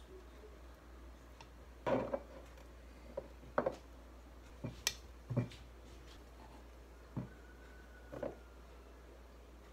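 A metal spoon clinking and scraping against a stainless steel mixing bowl as thick reconstituted powdered butter is stirred and scooped out: about eight separate knocks and clinks, the loudest about two and five seconds in. Near the end a glass dish knocks on the wooden counter.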